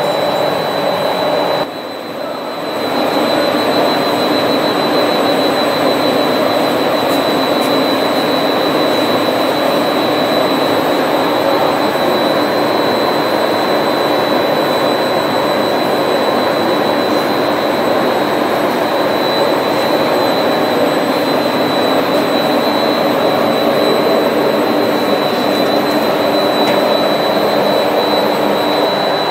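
Plastic film extrusion laminating line running: a loud, steady machine noise with a thin, high, steady whine over it. The noise dips briefly about two seconds in.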